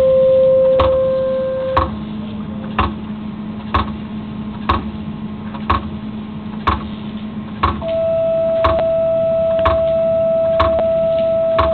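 Steady pure test tone played through a subwoofer to vibrate a sand-covered aluminium plate. It sits at a middle pitch, drops to a low hum about two seconds in, then jumps to a higher tone about eight seconds in, each change of tone reshaping the sand pattern. A sharp tick sounds about once a second throughout.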